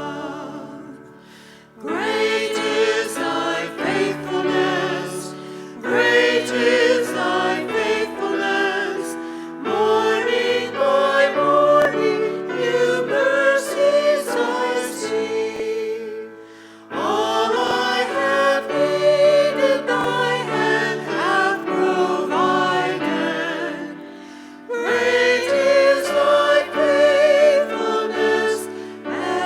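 Choir singing a hymn over sustained accompanying chords, in phrases separated by short breaks.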